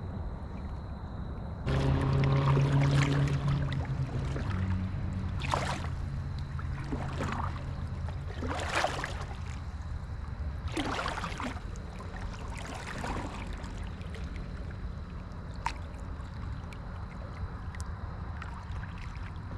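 Kayak moving across the lake: a steady low hum with water swishing and splashing against the hull about five times, one and a half to two seconds apart.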